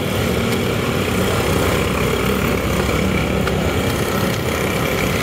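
A steady engine drone with a low hum, unchanging throughout, with a couple of faint clicks over it.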